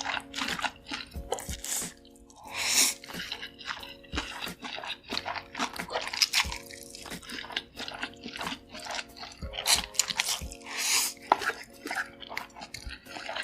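Close-miked wet eating sounds from noodles with cheese and sausages: rapid moist clicks and smacks of chewing, with a few longer hissing slurps. Soft background music plays underneath.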